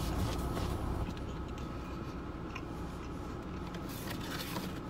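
Quiet car-cabin background: a low steady rumble with a faint steady hum and a few small ticks.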